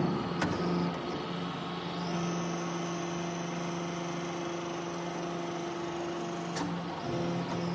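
Hydraulic briquetting press running with a steady mechanical hum from its pump and motor. About two seconds in, a higher whine joins the hum, and there are sharp clicks about half a second in and near the end.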